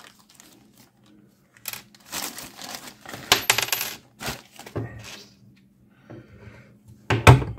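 Leatherman ARC multitool's plier wire cutters biting through about 2.5 mm of metal inside a plastic bag. Rustling and light metallic clinks as the tool and piece are handled, then a sharp snap near the end as the cut goes through.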